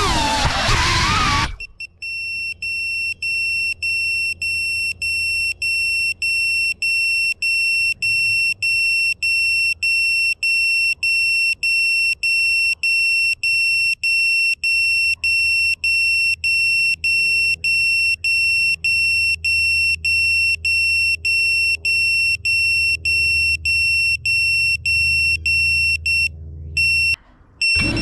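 Music cuts off about a second and a half in, and a high-pitched electronic beeper takes over, sounding in short even pulses about twice a second over a low steady hum. The beeping stops shortly before the end.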